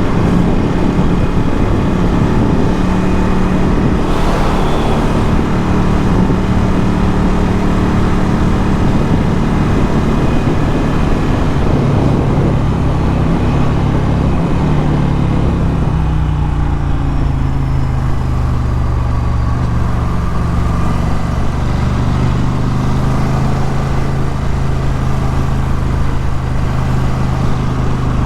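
Ducati Scrambler 1100's air-cooled L-twin with a Termignoni exhaust, running steadily while riding. About halfway through, the engine note drops and settles at a lower pitch.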